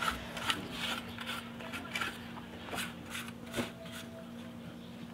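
A brush scrubbing at a pressure washer's plunger pump in short, irregular scraping strokes, thinning out after about four seconds, over a steady low hum.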